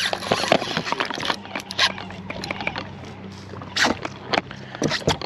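Penn spinning reel being worked while fighting a hooked fish: irregular clicks and rattles from the reel and rod, over a steady low hum from the boat's electric trolling motor.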